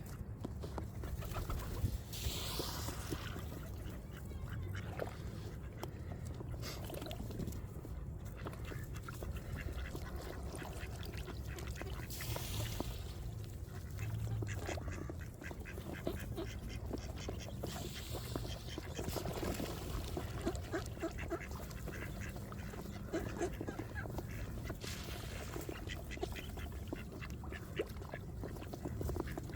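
A flock of ducks quacking on and off, over a steady low rumble.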